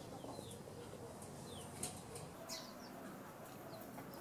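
Small birds chirping now and then: short, high chirps and quick little whistles over a faint outdoor background.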